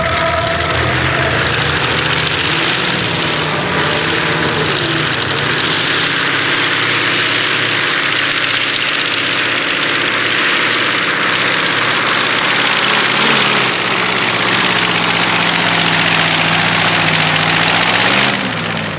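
Radial aircraft engine of a modified pulling tractor running flat out under load as it drags the weight sled: a loud, steady drone whose low pitch wavers through the run. Near the end the pitch rises briefly, then the engine sound drops away sharply.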